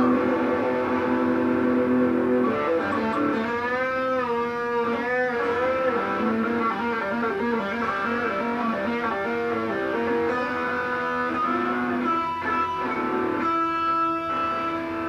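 Guitar music: held notes over sustained chords, with notes bending and wavering in pitch a few seconds in.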